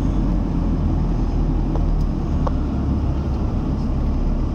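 Steady low rumble inside a car's cabin: engine and road noise from a car moving slowly in city traffic.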